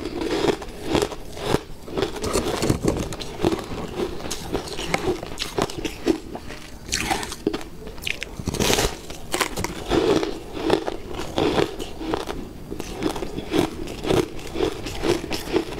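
Close-up eating sounds: a person biting into crunchy pastel-striped cubes and chewing them, with repeated crisp crunches about once or twice a second.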